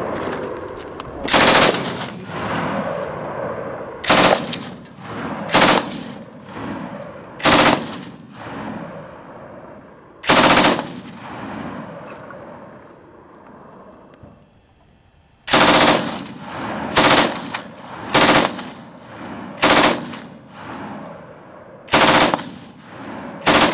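MG42 belt-fed machine gun in 7.92 mm Mauser firing about eleven short bursts, each trailing off in an echo, with a pause of about four seconds in the middle.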